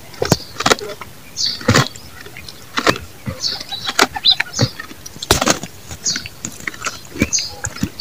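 Goat chewing up close: irregular crunching clicks from its jaws and teeth, a few each second.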